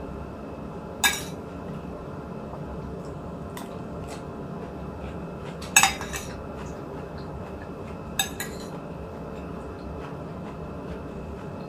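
Plates and cutlery clinking at a meal: three sharp clinks spread over several seconds, with a few fainter taps between, over a steady low background hum.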